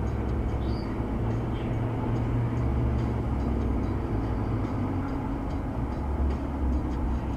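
Road and engine noise heard from inside a car cruising on a highway: a steady low rumble.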